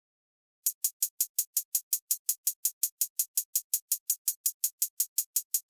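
A programmed hi-hat from a drum machine, playing on its own in an even run of short, crisp hits, about six a second. It starts just over half a second in.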